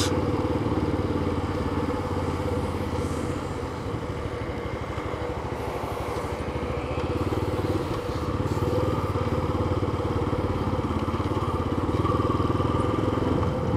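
Yamaha FZ25 single-cylinder motorcycle engine running under way while riding at street speed, with a steady drone and wind rush on the microphone. It eases off around four seconds in through a turn, then pulls up again.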